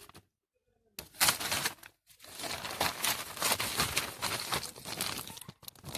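Crinkling and rustling of a plastic bag being handled, in a short burst about a second in and then a longer stretch of about three seconds.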